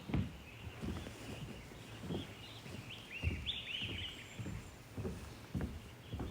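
Young bear asleep and snoring: a run of short, low snores about one a second. Birds chirp briefly in the middle.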